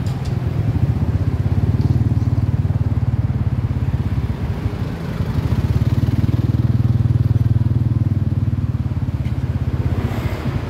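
Motorcycle taxi's engine running under way, heard close up from the pillion seat as a steady low pulsing rumble. It eases off briefly about five seconds in, then picks up again.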